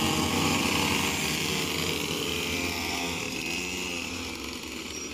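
Several small two-stroke pocket-bike (minimoto) engines running hard together, a steady, busy engine buzz that grows slightly fainter near the end as the bikes pull away.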